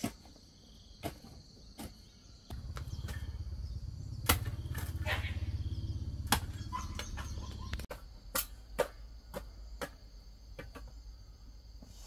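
Insects chirring steadily, with several sharp knocks scattered through. A low pulsing hum comes in about two and a half seconds in, runs for about five seconds and cuts off suddenly.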